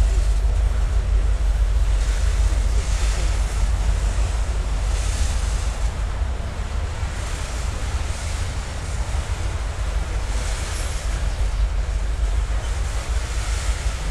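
Wind buffeting the microphone over the slow rolling of loaded coal hopper cars crossing a steel bridge, as a freight train eases toward a stop. A soft high hiss swells and fades every two to three seconds.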